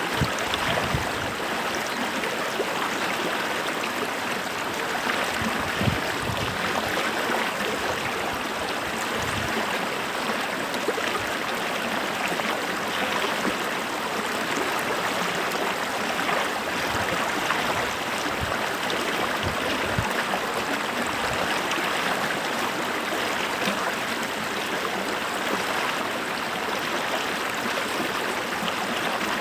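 Running water rushing steadily, like a stream over rocks, with a few faint low thuds.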